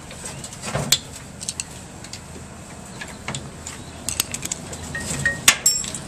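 Scattered metallic clinks and knocks as a washing machine's motor and its surrounding metal parts are worked loose by hand, the loudest knock a little past five seconds in.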